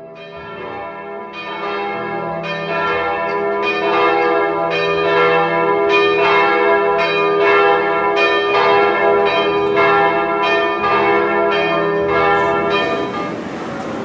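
Church bells rung by hand with ropes, struck over and over about once or twice a second, each stroke ringing on under the next.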